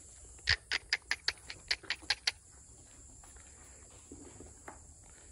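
A quick run of about ten sharp clicking taps over about two seconds, then only a few faint ones, over a steady high buzz of crickets.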